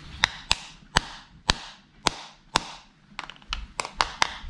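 Kitchen knife striking the thick shell of a boiled lobster claw to crack it: sharp knocks about twice a second, coming quicker and closer together near the end. The shell is solid and does not give easily.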